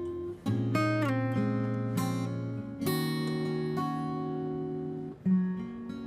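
Background music on acoustic guitar: chords struck and left to ring, changing every second or so.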